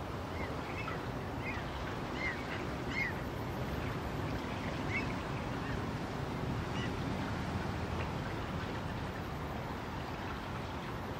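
Steady rushing of wind and water at a shoreline, with short high bird calls scattered through the first two-thirds.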